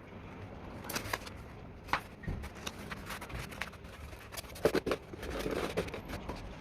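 Scattered light clicks, taps and scrapes of hand tools and small parts being handled, with a busier scraping stretch about five seconds in.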